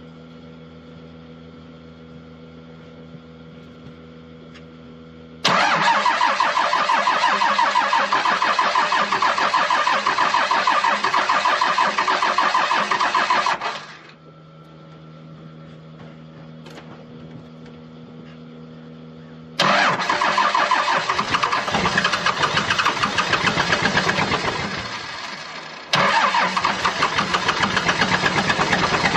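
12-valve Cummins diesel turned over by its starter in three long cranking attempts, the second fading before the third begins, without the engine yet catching: the winter hard start that the owner suspects comes from the injection pump or injectors. Between attempts a low steady hum.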